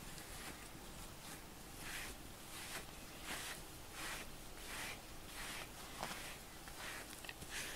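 Grooming brush swishing through a cat's fur in repeated soft strokes, about one every two-thirds of a second.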